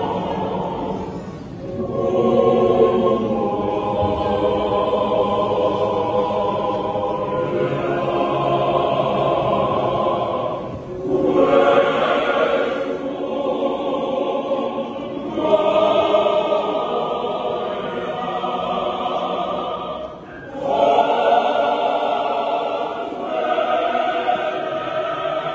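A large mixed choir of men's and women's voices singing in harmony, in long phrases with a brief dip between them, about every ten seconds.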